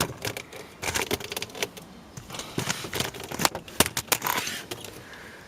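Irregular clicks, taps and light metallic rattles of hands handling and checking parts under a car, thickest in the middle seconds.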